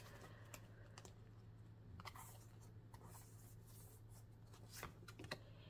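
Near silence with a few faint, scattered soft clicks and rustles of tarot cards being handled as a card is drawn.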